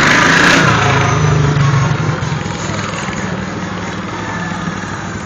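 Racing lawn mower engines revving hard as they launch off the line with a loud burst of noise, then running on and slowly fading.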